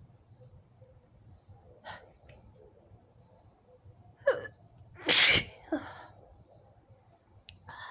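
A woman sneezing as part of a sneezing fit: a couple of sharp catches of breath, then one loud sneeze about five seconds in, with a brief trailing breath after it.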